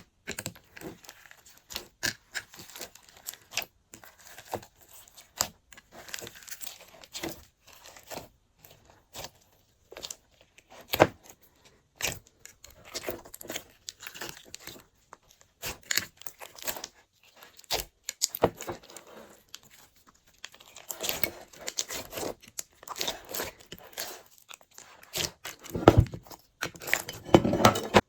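Hands squishing, stretching and folding glossy slime, making irregular sticky clicks, pops and crackles that grow busier and louder near the end.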